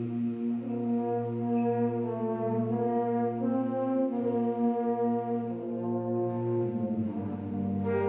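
Concert band playing a slow passage of held brass chords that move from note to note, with the full band coming in brighter near the end.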